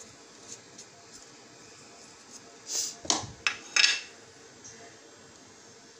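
A plastic spoon scraping spice powder out of small serving dishes into a mixing bowl of chicken pieces. There is a short scrape near the middle, then a few sharp clatters of the dishes and spoon against each other about a second later, the last the loudest.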